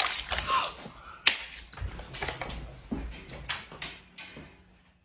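Several sharp hits in a small room, the clearest about a second in and two more in quick succession about three and a half seconds in, with scuffling and breathy sounds between them.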